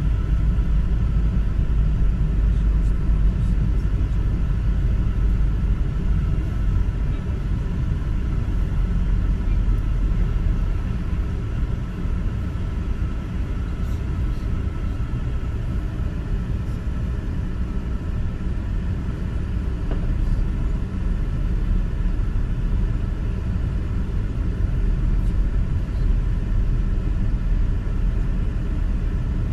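Steady low rumble with a faint, constant hum above it, like the road noise of a moving vehicle; no distinct bangs stand out.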